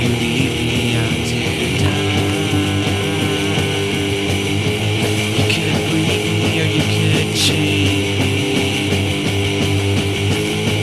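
Instrumental passage of a 1995 noise-pop song: strummed electric guitars over a full band backing, with no singing, and a sharp strike about seven seconds in.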